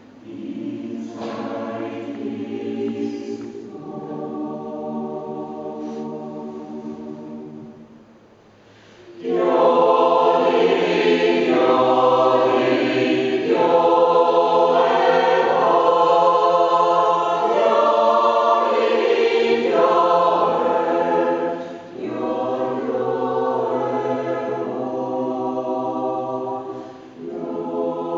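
Mixed choir of men's and women's voices singing an Austrian Advent yodel song (Jodler). It starts with a softer passage, then about nine seconds in the full choir comes in much louder, with short breaks between phrases.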